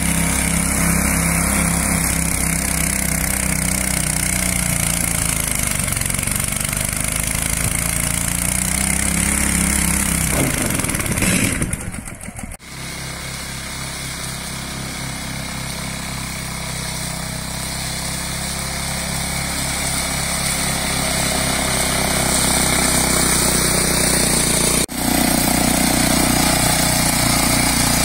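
Small petrol engines of radio-controlled mowers running steadily while cutting long grass and nettles. In the first part the engine note drops and recovers over a few seconds. About twelve seconds in the sound breaks off and a second mower's engine takes over, running steadily.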